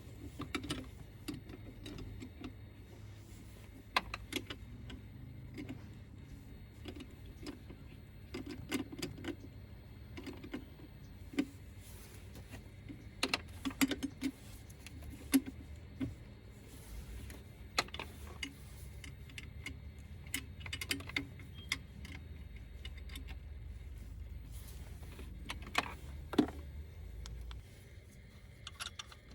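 Hand tools and metal parts clinking and clicking at irregular moments over a low steady hum, as in work on the engine's belt drive and idler pulley.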